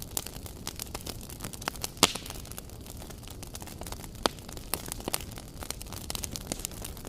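Wood fire burning in a fireplace: irregular crackles and pops over a low steady rush, with a sharp pop about two seconds in and another louder one a little after four seconds.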